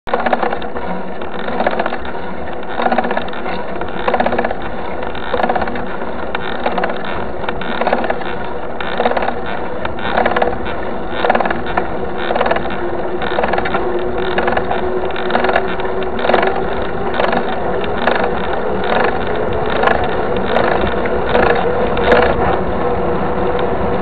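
Mountain bike riding along an asphalt road: steady rolling and wind noise with a steady hum, pulsing a little more than once a second as the bike is pedalled.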